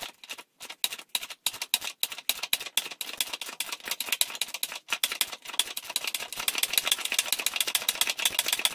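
Ratchet spanner clicking as it undoes the large rusted nut on a classic Mini rear subframe trunnion. The clicks start sparse and come faster and faster as the nut frees up and spins off more easily.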